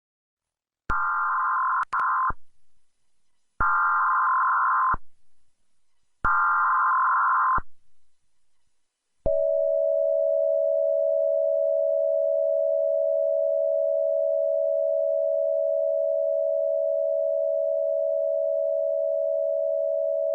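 Emergency Alert System SAME header: three short bursts of screeching digital data tones, each about a second and a half long with short gaps between them. About nine seconds in, a long steady alert tone of a single low pitch begins; it is a customized tone rather than the standard attention signal.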